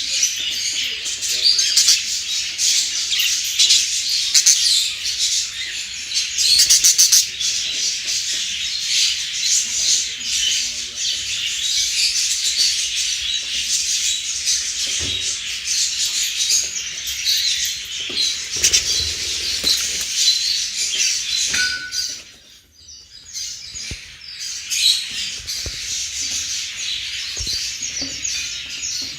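Budgerigars chirping and chattering continuously in a busy, overlapping stream, with a brief lull about three quarters of the way through.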